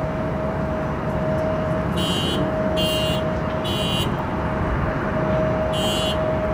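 Distant Boeing 747's four jet engines on approach: a steady low rumble with a steady whine running through it, mixed with road traffic. Four short high-pitched electronic beeps cut in, three in quick succession about two seconds in and one near the end.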